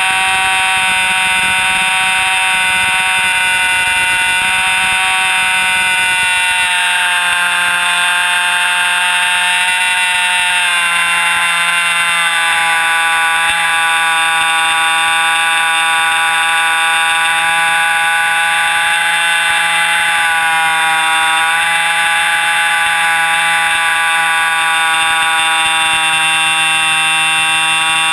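Jett .90 two-stroke glow engine and propeller of an RC airplane running at high throttle in flight, heard close up from a camera mounted under the plane: a loud, steady whine. Its pitch drops a little about eleven seconds in and wavers again around twenty seconds in.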